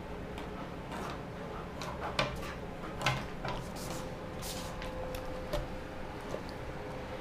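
Light, scattered taps, clicks and scratches of a kitten's paws batting a marker pen across a wooden table top, with a brief papery scrape about four and a half seconds in as it lands on a sheet of paper. A faint steady tone runs under the second half.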